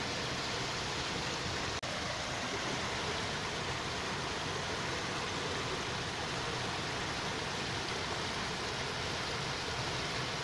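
Steady, even rushing noise with no distinct events; it cuts out for an instant about two seconds in.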